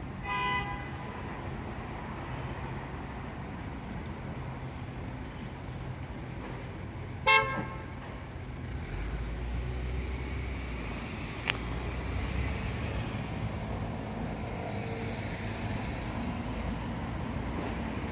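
Two short vehicle horn toots, one right at the start and a louder one about seven seconds in, over steady street traffic. The traffic rumble swells about nine seconds in.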